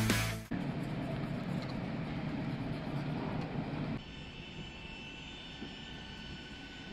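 Rock music cuts off in the first half second, leaving a steady rushing background noise. About four seconds in, this switches to the steady whine of a Boeing 737 airliner on the apron, several high tones held level.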